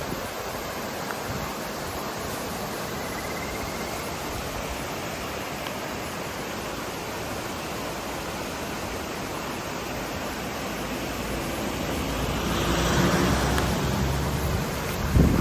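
Mountain river water rushing steadily, an even hiss of flowing water. It swells louder for a couple of seconds near the end, with a brief low bump at the very end.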